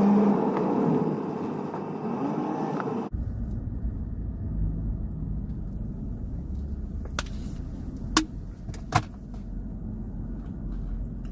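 Steady low rumble inside a car cabin, with a sudden change in tone about three seconds in. A few sharp clicks stand out near the end.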